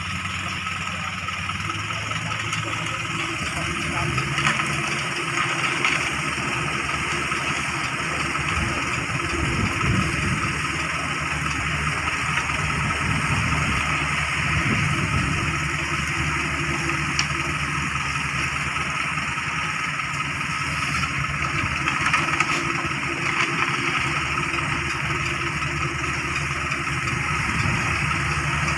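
Diesel engines of a CAT mini excavator and a concrete mixer truck running steadily while the excavator works its arm.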